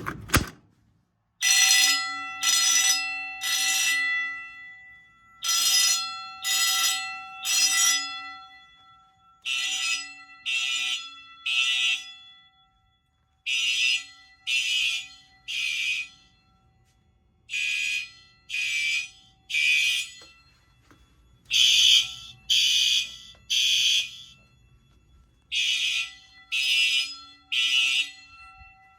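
Fire alarm bell ringing in a temporal-three pattern: three rings of about half a second each, a second apart, then a pause, the groups repeating about every four seconds.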